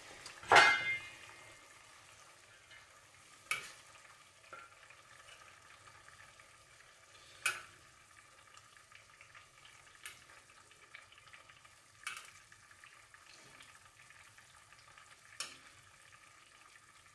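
Chicken bones and skin sizzling and bubbling in fat and broth in a stainless steel sauté pan, a steady faint hiss. Metal tongs clink against the pan several times as pieces are lifted out; the loudest clink, with a ringing note, comes about half a second in.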